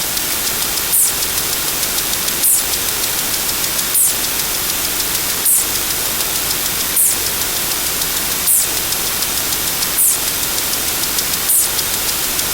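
Steady hiss of noise with a short high chirp that repeats evenly about every second and a half.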